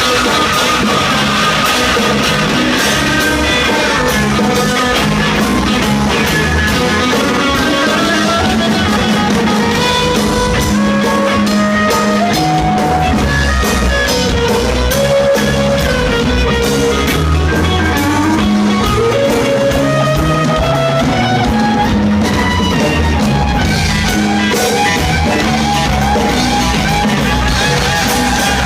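Rock band playing an instrumental passage: a lead guitar melody, gliding and bending between notes, over drum kit and bass.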